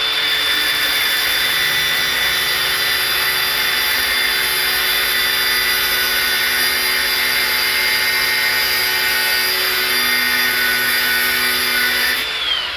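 Electric power tool cutting a pin to length, running steadily with a high whine over a hiss, its pitch dropping as it winds down near the end.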